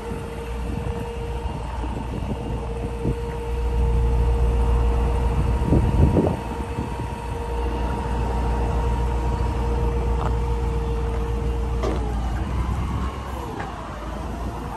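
Hydraulic pump of a Versalift VST-50 bucket truck's boom system whining at a steady pitch over the low rumble of the RAM 5500's 6.4-litre gas V8 running, as the boom is operated. The whine cuts off with a click about twelve seconds in as the boom control is released.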